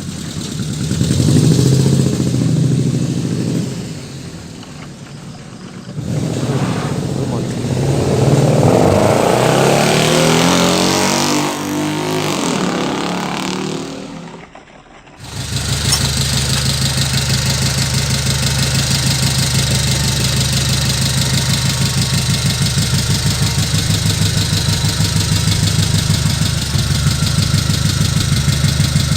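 Truck engine sound, rising and falling as if revving for the first half. It drops out briefly about halfway through, then settles into steady, evenly pulsing idling.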